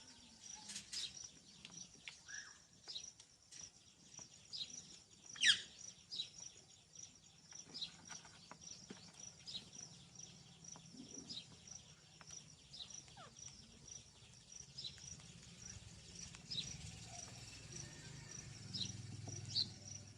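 Rose-ringed (ringneck) parakeet giving scattered short chirps and a few sharp downward-sweeping screeches, the loudest about five and a half seconds in. Behind them runs a faint, steady, high chirp repeating about twice a second.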